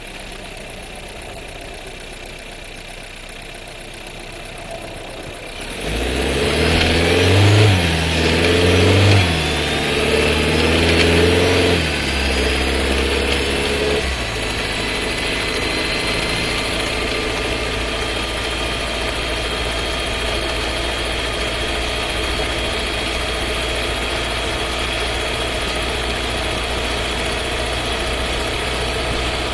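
Skoda Scala 1.5 TSI four-cylinder engine and seven-speed DQ200 dry-clutch DSG heard from inside the cabin: a low idle hum, then about six seconds in the car pulls away, the engine pitch rising and dropping several times as the gearbox shifts up, before settling into a steady drone with a strong low hum.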